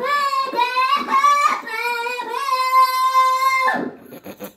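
A young child singing high notes into a toy karaoke microphone: a run of short notes, then one long held note that stops near the end, followed by a few soft clicks.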